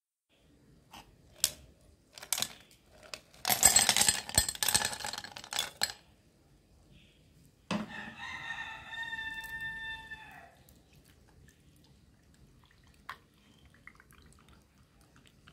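Ice cubes clinking, then clattering loudly into a glass mug as they are poured from a plastic container. About eight seconds in, a rooster crows once, a single long call that tails off after a couple of seconds.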